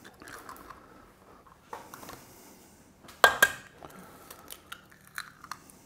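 Eggs being cracked against a stainless steel mixing bowl and pulled open by hand: one sharp tap a little past halfway, then a few small clicks and crackles of shell.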